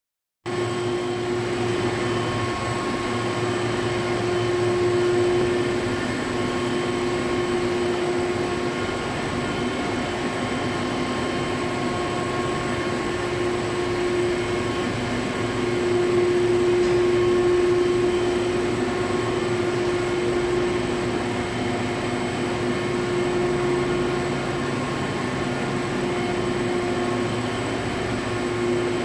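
NTH1200 hot melt adhesive coating machine running, its rollers turning the label paper web: a steady mechanical hum with a few steady tones on top, swelling slightly around five and sixteen seconds in.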